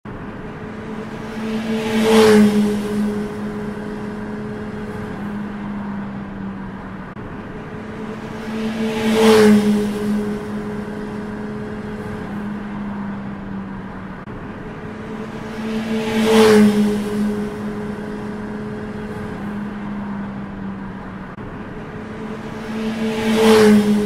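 Motorcycle passing fast four times, about seven seconds apart: each time the engine note swells to a peak and drops in pitch as it goes by, with a steady engine drone in between.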